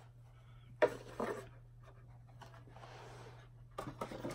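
Hands handling small cosmetic items in a cardboard subscription box: a sharp click about a second in, then soft rustling and scraping, and a few light taps near the end.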